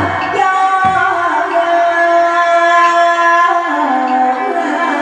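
Hát bội (Vietnamese classical opera) music: singing in long held notes over instrumental accompaniment, the melody stepping down in pitch a little past halfway.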